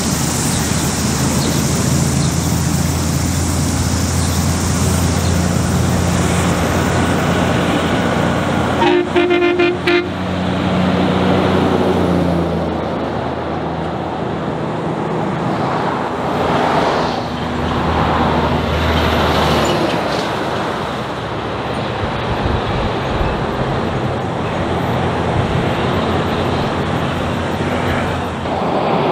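Heavy diesel truck-and-trailer units driving past on a highway, their engines running with a low drone and tyre noise swelling and fading as each truck passes. About nine seconds in, a truck horn sounds for about a second, the loudest sound here.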